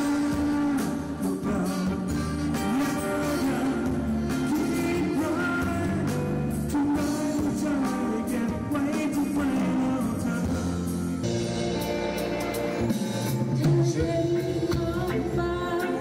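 A live band playing a song: a man singing over electric keyboard, electric bass guitar and drum kit. About eleven seconds in it changes abruptly to a different song.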